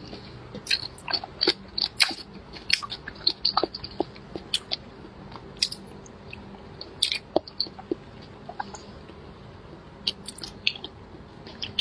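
Close-miked chewing of soft, fatty braised pork belly: wet mouth clicks and smacks coming irregularly, with a sparser stretch a little past the middle.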